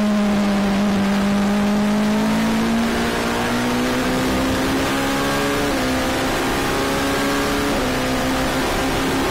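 Gibson 4.2-litre V8 of an Oreca LMP2 prototype, heard from the cockpit while accelerating. Its engine note climbs slowly, broken by two quick upshifts about six and eight seconds in, over steady wind and tyre noise.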